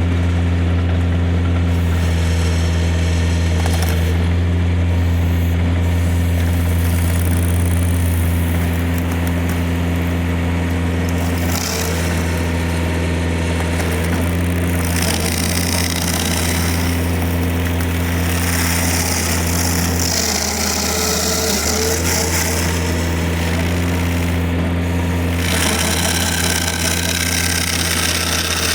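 Tractor engine running steadily at high revs, driving a Woods TSG50 PTO stump grinder as it cuts into a stump. The engine note drops under load about twenty seconds in and recovers, with a hissing grinding noise coming and going.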